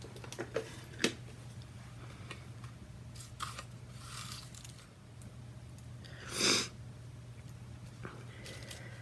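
Small paper die-cut shapes rattling and rustling in a clear plastic box as it is handled, with a few light clicks in the first second and one louder noisy rustle about six and a half seconds in.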